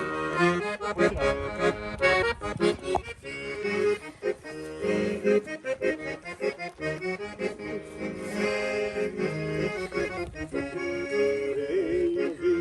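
Accordion playing an instrumental passage of gaúcho-style music over a steady rhythmic accompaniment, with chords and melody notes changing in a regular beat.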